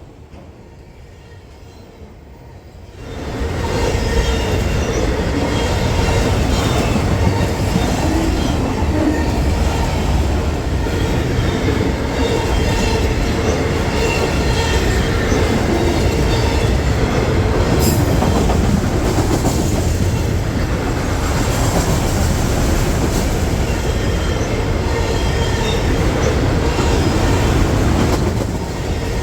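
A freight train of auto rack cars rolling past, loud and steady, starting about three seconds in after a quieter stretch.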